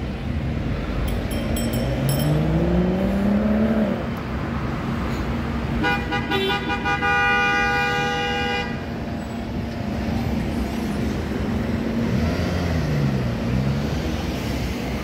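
Busy road traffic with engines running, and a vehicle horn sounded in one steady blast of about three seconds in the middle. Before it, an engine note rises as a vehicle pulls away.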